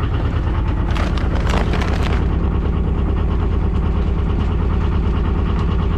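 Yanmar 2QM20 two-cylinder marine diesel running steadily with an even, fast rhythmic clatter, newly brought back to life after a starter, fuel-line and injector repair. A few short noises sound over it about one to two seconds in.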